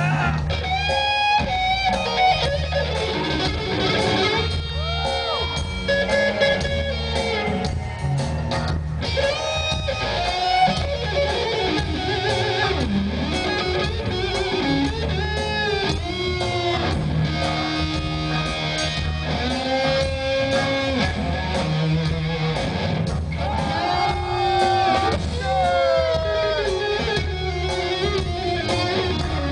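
Live electric guitar solo, loud and continuous, with many notes bent up and down over a steady low bass line.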